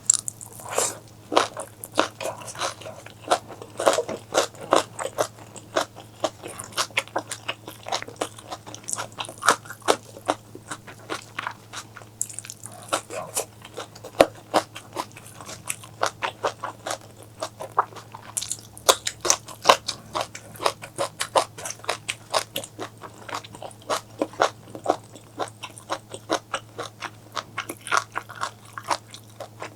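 Close-miked mukbang eating: chewing and biting, with many sharp crunches in quick succession, several a second.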